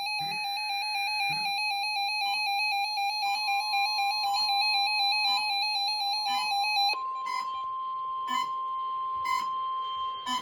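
NOAA Weather Radio warning alarm tone, a steady electronic tone sounding ahead of a National Weather Service special marine warning. It comes in faintly a few seconds in and grows strong about halfway through. Before that, a second, wavering electronic tone sounds and stops. Short clicks come about once a second near the end.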